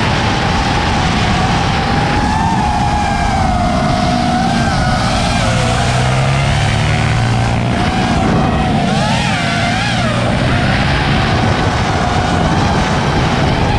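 FPV racing quadcopter's brushless motors and propellers whining, the pitch rising and falling continually with the throttle and wobbling quickly a couple of times near the end, over the drone of small engines below.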